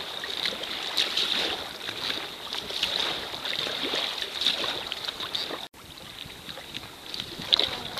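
Choppy sea water splashing and slapping against a sea kayak's hull as it is paddled, with wind on the microphone. About two-thirds of the way through, the sound drops out for an instant and comes back quieter.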